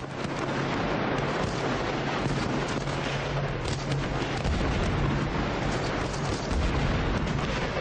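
Five sniper rifles firing rapidly at the same time, the many shots running together into a continuous crackle with sharp reports standing out here and there.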